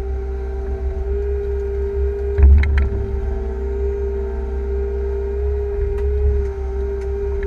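Liebherr 311 wheeled excavator's diesel engine and hydraulics running under load, heard from inside the cab: a low rumble with a steady whine. About two and a half seconds in there is a short, loud clatter and knocking as the bucket empties its load into the truck.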